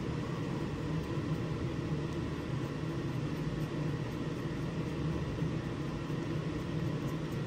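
Spray booth exhaust fan running with a steady low hum and air rush.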